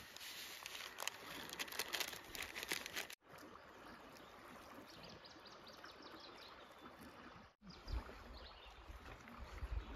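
Faint clinks and scrapes of a plastic spork on steel camp plates and a pot as oatmeal is scooped out, over a quiet steady outdoor hiss; a low rumble joins near the end.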